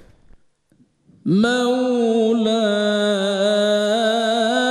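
A man's solo voice singing an unaccompanied Islamic devotional chant into a microphone. After about a second of near silence he comes in on one long, ornamented note with a slow vibrato and holds it to the end.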